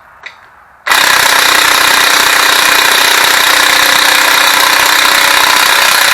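Impact wrench hammering steadily for about five seconds, starting about a second in, as it breaks loose and spins out a main bearing cap bolt.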